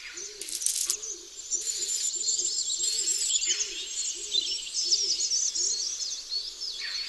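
Several birds chirping and singing together, with a low repeated note about twice a second beneath them and a few short bursts of high hiss in the first half.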